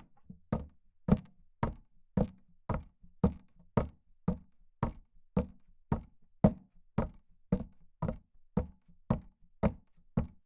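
Steady knocking: about twenty sharp knocks evenly spaced, a little under two a second, each with a short ring after it.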